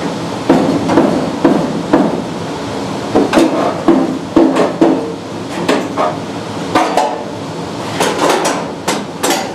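Hammer blows on car sheet metal: a string of irregular sharp strikes with a short metallic ring, knocking the front clip back into position.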